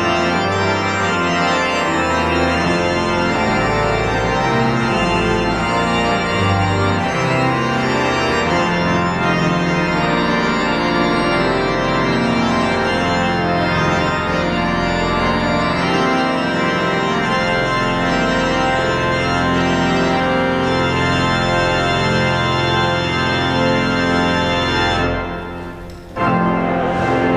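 Church pipe organ playing sustained chords over a moving bass line. Near the end the sound fades away, then comes back in abruptly.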